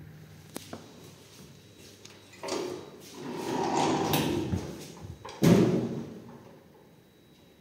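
Lift doors sliding: a small click, then about two seconds of rolling, rumbling door travel, ending in a loud bump about five seconds in that dies away.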